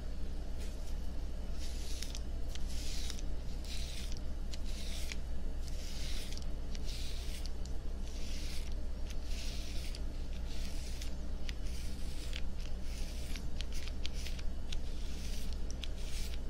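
Razor shaving stubble up close on a binaural microphone: repeated short scraping strokes through the beard, about one or two a second, with small clicks between them, over a steady low hum.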